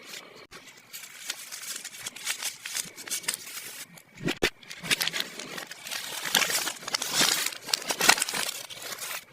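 Plastic packaging crinkling and rustling as small toys are unwrapped, with many small clicks and taps, busier and louder in the second half.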